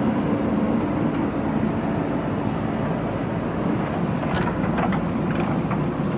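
JCB backhoe loader's diesel engine running steadily, with a few sharp clanks between about four and five and a half seconds in.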